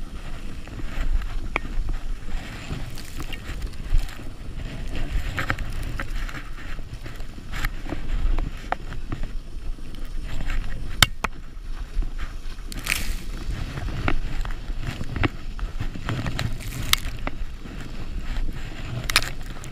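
A sled sliding fast down a snowy trail: a steady rushing scrape of the sled over snow with a low rumble underneath. A sharp knock comes about eleven seconds in, and there are several brief louder hisses as snow sprays up.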